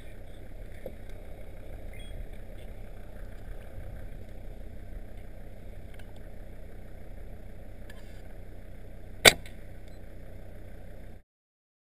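A tranquilliser dart rifle fires a single sharp shot about nine seconds in, over a steady low rumble; the sound cuts off abruptly about two seconds later.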